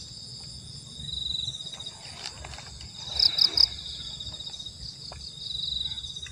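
Insects chirping in a steady, high, pulsing trill, with three short louder chirps about three seconds in, over a low rumble.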